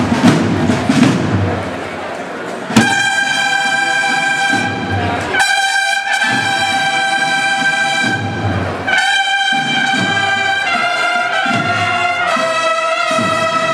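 A cornetas y tambores band of bugles and drums playing a processional march. Drums alone for the first couple of seconds, then the bugles come in together with a sudden loud attack. They hold long notes with short breaks over the drums and step down in pitch near the end.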